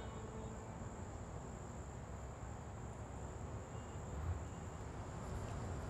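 Crickets trilling steadily in one high, unbroken tone over low outdoor background noise.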